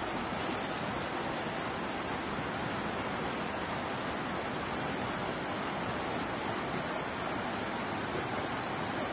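Swollen, muddy river rushing over rapids below a bridge: a steady, unbroken rush of fast water, the river still running high after flooding.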